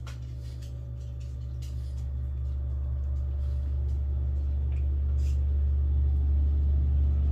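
A low, steady rumble grows gradually louder, with light clicks of a metal fork against a plate over it.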